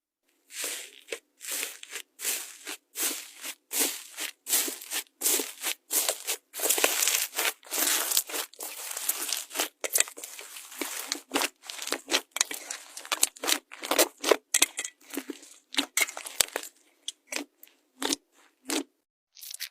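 Slime being squeezed and worked, giving a rapid, uneven run of crackling, crunching pops, several a second, that thickens into an almost continuous crackle for a few seconds in the middle.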